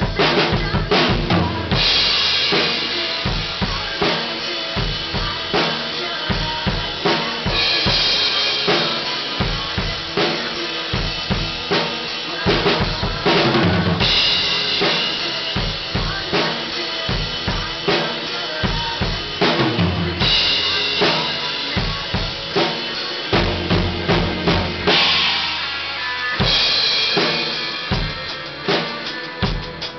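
Acoustic drum kit played in a steady beat: bass drum, snare and cymbals, with bright cymbal washes coming back every five or six seconds.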